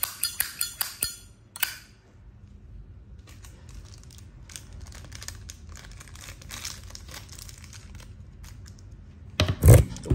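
Quick run of sharp metallic clicks in the first second from a Zippo lighter being worked in the hand, with one more click shortly after. Faint rustling handling noise follows, then a loud knock near the end.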